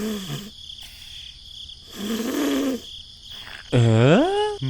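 Wordless vocal exclamations: a short sliding murmur, then a longer one, then a loud swooping call near the end. A steady high chirring of insects runs underneath.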